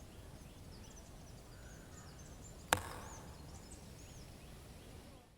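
Faint outdoor ambience with small bird chirps, and a single sharp knock about two and a half seconds in. The sound fades out near the end.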